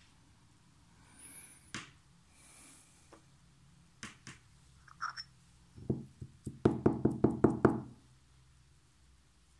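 A few light clicks and taps, then a quick run of about eight knocks on a hard surface over two seconds in the second half, the loudest sound here.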